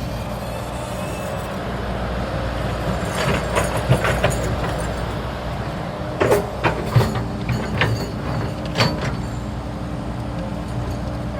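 Hydraulic excavator's diesel engine running steadily, with a scatter of sharp knocks and clanks from about three to nine seconds in.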